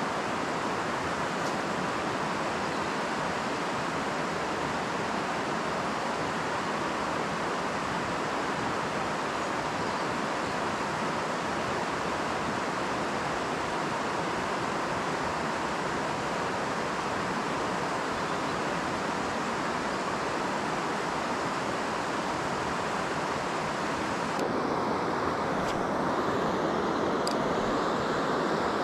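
Steady rushing of river water spilling over a weir, an even noise that never lets up. Near the end the rush turns a little louder and changes tone, with a couple of faint ticks.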